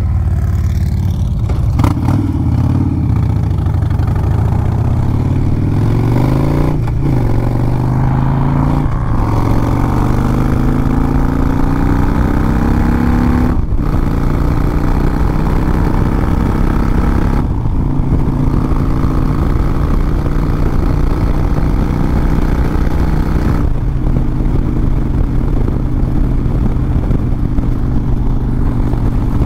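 Harley-Davidson V-twin motorcycle engine accelerating up through the gears, its pitch rising and briefly cutting out at each of three shifts, then running at a steady cruise with a couple of short throttle lifts.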